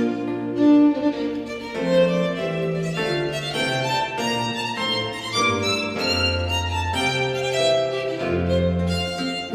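Instrumental background music: a melody of held, changing notes over sustained low bass notes.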